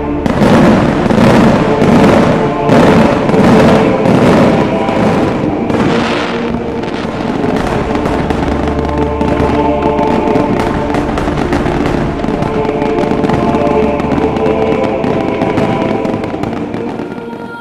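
Fireworks display: a rapid string of bangs, about two a second, for the first six seconds, then lighter, denser crackling. Music plays throughout.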